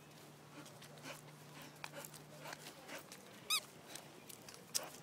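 Pitbull puppy giving one short, high-pitched squeak-like whine about three and a half seconds in, over faint rustling and handling noise.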